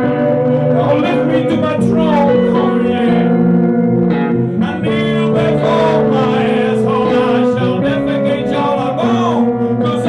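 Electric guitar played live through an amplifier in a blues style: held notes and chords with several notes bent up and back in pitch.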